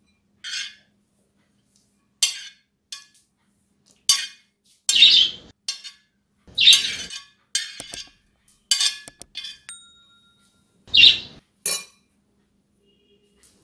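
A metal spoon scraping grated carrot off a ceramic plate into a glass bowl: a dozen or so short, irregular scrapes and clinks, with a brief thin squeak about ten seconds in.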